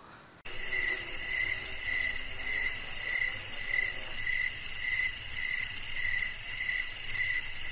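Crickets chirping: a steady high trill pulsing about twice a second, starting abruptly about half a second in.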